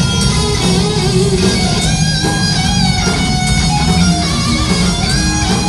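A live rock band playing loudly, with electric guitar to the fore over bass and drums, heard from within the audience.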